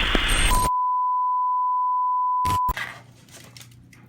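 A loud burst of noise lasting about a second, then a steady, pure electronic beep near 1 kHz held for about two seconds and cut off abruptly, followed by a few short clicks.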